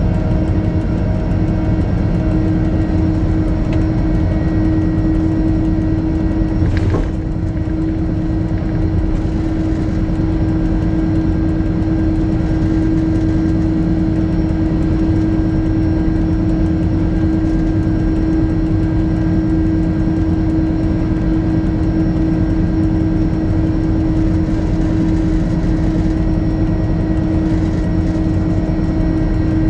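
Diesel bank locomotive running steadily, a steady engine hum with a strong fixed drone. A brief clunk about seven seconds in, after which it runs slightly quieter.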